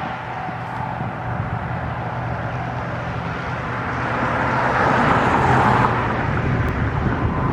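Road traffic noise from a nearby highway, with a vehicle passing that swells and fades about four to six seconds in.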